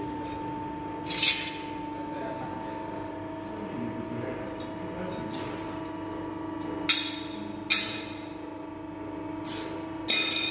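A handful of sharp metallic clinks from small sheet-steel pieces being handled and set down, the two loudest close together a little past the middle, over a steady machine hum.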